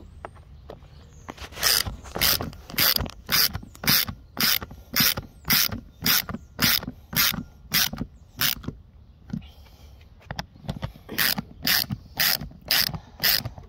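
Ratchet socket wrench clicking in short, even bursts, about two a second, as it is swung back and forth to drive a Torx 30 bolt into a tonneau cover latch handle. The ratcheting pauses for about two seconds past the middle, then resumes.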